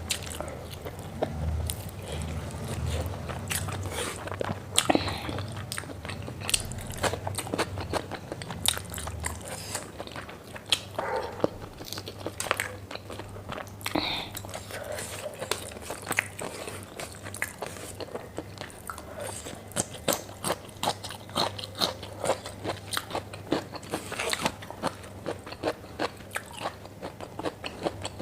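Close-miked eating: a person biting and chewing a meal of pork with rice, with many irregular crunches and wet mouth clicks.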